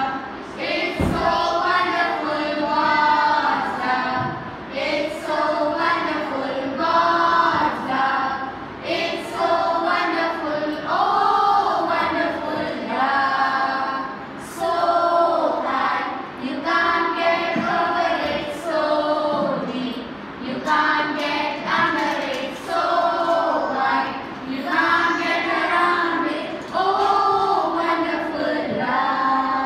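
A group of young children and women singing an action rhyme together in unison, in short repeated sung phrases with a steady rhythm.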